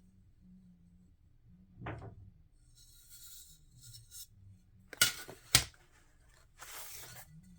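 Small sheets of stained glass and their packaging being handled: faint rustling, with two sharp clicks about half a second apart past the middle, then a short rustle.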